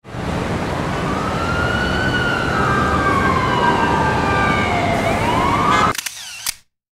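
Busy street noise with an emergency-vehicle siren wailing, slowly rising and falling in pitch, which cuts off suddenly about six seconds in. It is followed by a quick run of camera shutter clicks.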